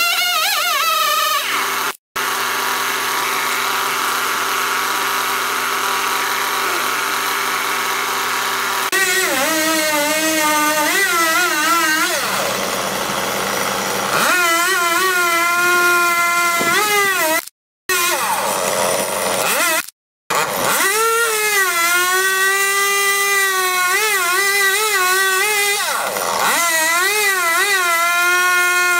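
Chainsaw cutting into a redwood trunk: the engine runs at a steadier, lower note for several seconds, then at high revs with the pitch wavering up and down as the chain loads and unloads in the wood. Three brief gaps of silence break the sound.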